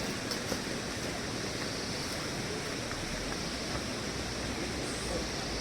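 Steady rush of flowing water from a mountain stream, with a couple of faint clicks near the start.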